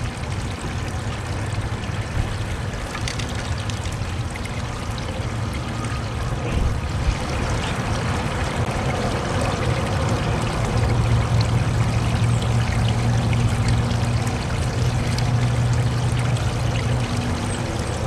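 Steady rushing noise with a low, steady hum beneath it, a little louder from about ten seconds in.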